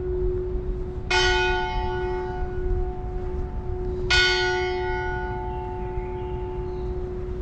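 A single large bell tolling slowly. It is struck twice, about one second and four seconds in, each strike ringing on with a long hum note that carries between strokes. A low rumble runs underneath.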